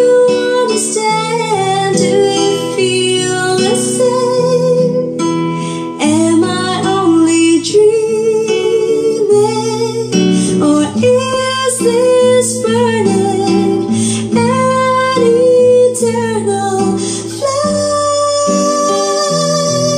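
A song with acoustic guitar and singing played at high volume through a pair of custom speaker boxes with large woofers and horn tweeters, driven by the Ace LX20 power amplifier on its own with no equalizer. The music starts abruptly at the very start.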